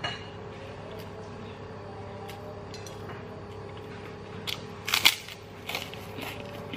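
Crisp crunches of a white kerupuk cracker being bitten and chewed, in a short cluster about four and a half to six seconds in, the loudest near five seconds.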